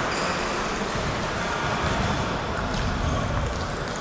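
Reverberant sports hall background: a low murmur of voices with a few faint clicks of table tennis balls from nearby tables.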